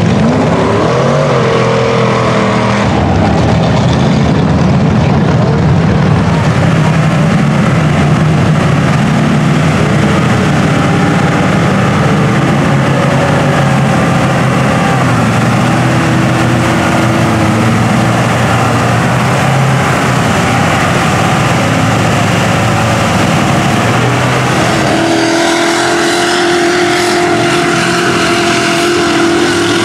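Big-tired mud trucks' engines revving hard as they churn through a deep mud pit. About 25 s in, the sound changes to another engine holding a steadier, higher note.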